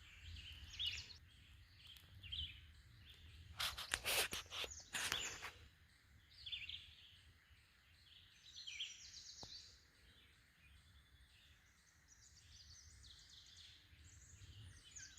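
Woodland birds singing: scattered chirps and short high phrases from several birds, faint, with two brief scratchy noises about four and five seconds in.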